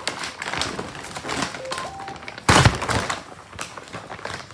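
A woven polypropylene feed sack rustling and crinkling as it is handled and spread flat, with one loud crackling thump about halfway through.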